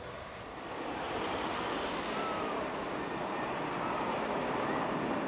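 Boeing 737-500's CFM56-3 turbofan engines running: a steady jet rush with a faint whine shifting in pitch. It grows louder about a second in and stays loud.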